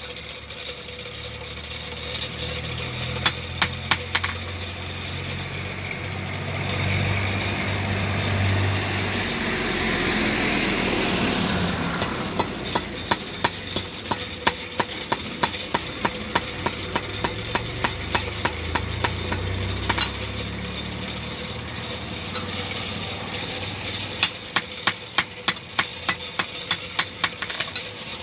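Hand hammer striking a steel blade on an iron anvil block, in runs of sharp metallic knocks about two to three a second. A steady engine hum sits underneath, and louder engine noise swells and fades in the middle.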